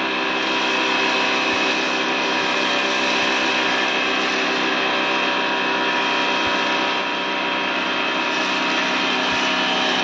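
Bosch electric pressure washer running steadily, its motor and pump humming under the hiss of a foam cannon spraying foam.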